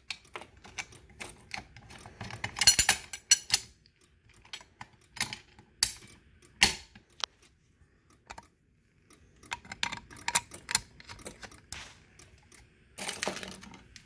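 Plastic and metal clicks and clatter of a fire alarm pull station being pried open with a flat-blade screwdriver and its handle reset, in irregular bursts with the loudest about three seconds in and just before the end.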